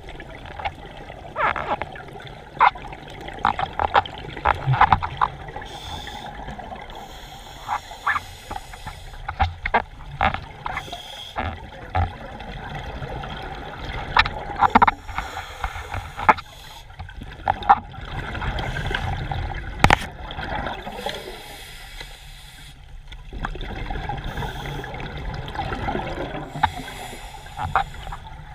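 Underwater sound on a scuba dive: a bubbling rush swells every few seconds, typical of a diver's exhaled regulator bubbles, over a low water murmur. Scattered sharp clicks and crackles run throughout.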